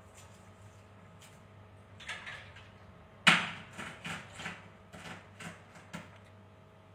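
A sharp knock about three seconds in, followed by a run of lighter knocks and clicks, over a faint steady hum: cookware and utensils being handled on a kitchen counter and stovetop.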